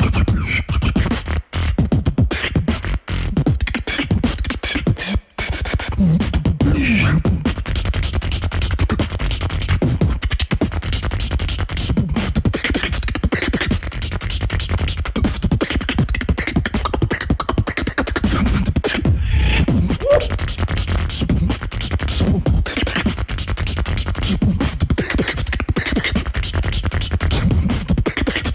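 Competitive beatboxing performance: one beatboxer making dense, rapid drum-like kicks, snares and clicks over a heavy bass line, with short pitched vocal sounds woven in. A few brief sharp breaks in the first five seconds.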